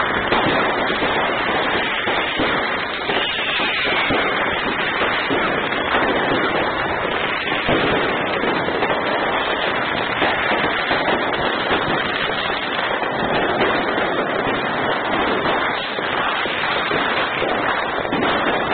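Fireworks going off in an unbroken barrage: a dense, steady stream of overlapping bangs and crackles with no pause.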